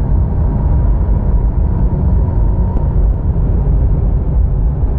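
Steady, deep rumble of a motorcycle engine running at an even cruise.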